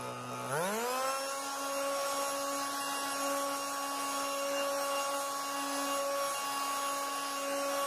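Handheld leaf blower speeding up from low speed about half a second in, its pitch rising, then running steadily at high speed as it blows leaves across a lawn.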